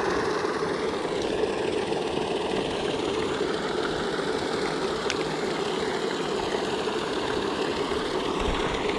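Paddlewheel pond aerators running: a steady mechanical drone over the churn of water thrown up by the paddles.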